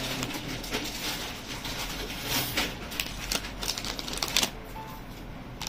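Clear plastic packets holding bangles crinkling and rustling as they are handled, with irregular sharp clicks.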